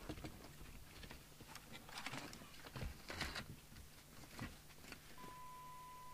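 Handling noise as the opened CB radio is turned over on the bench: light clicks and knocks of its plastic case halves and test leads, with some rustle, the loudest about two to three seconds in. About five seconds in, a steady high test tone starts and holds.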